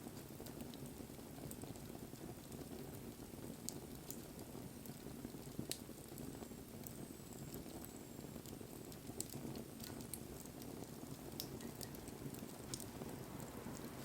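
Wood fire burning with a steady low hiss and scattered sharp crackles and pops.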